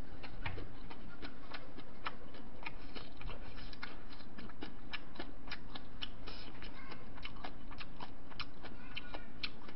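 Close-miked chewing of a mouthful of bibimbap: small irregular mouth clicks, several a second, over a steady background hiss.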